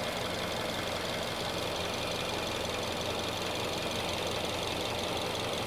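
Subaru Forester engine idling steadily, left running to warm up on premium fuel while being tested for pinging.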